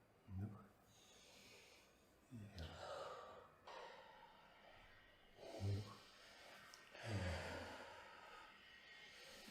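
A person breathing audibly, with four short voiced sighs, each falling in pitch, on the exhales.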